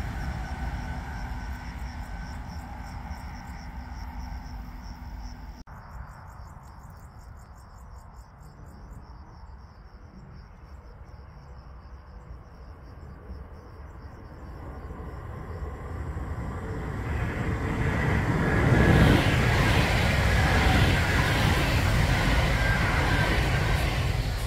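A passing train's rumble dies away, then insects chirp steadily over a quiet field. From about two-thirds of the way through, a loud train noise swells up and holds until near the end, as another train comes by.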